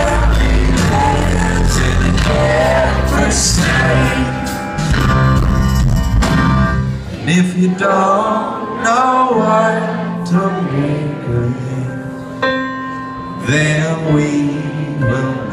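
Live band playing with voices singing over guitar. The heavy bass and drums drop away about seven seconds in, leaving lighter guitar and voices.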